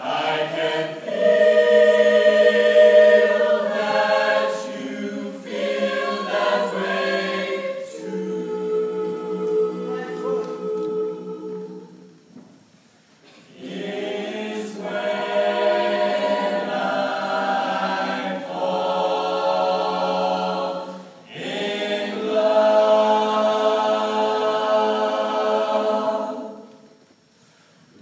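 Mixed student choir singing a cappella in slow phrases of held chords. The singing drops away briefly about twelve seconds in and again just before the end.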